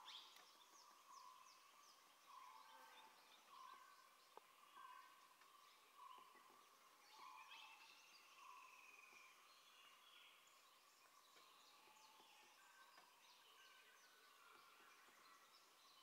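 Faint forest bird chorus: a series of short, low repeated notes about once a second, with scattered high chirps and one long arched whistle about seven seconds in.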